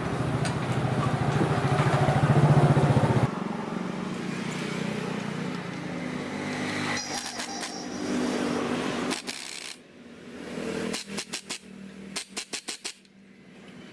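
A loud, steady engine-like drone cuts off abruptly about three seconds in, leaving a quieter hum. From about nine seconds in, a power screwdriver works a screw on a chainsaw engine in a series of short, quick bursts.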